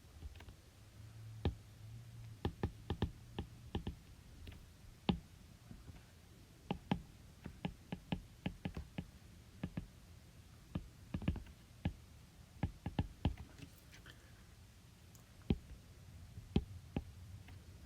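Dozens of sharp clicks from a computer input device, coming in irregular clusters, over a faint steady low hum. They are made while a worked calculation is written out.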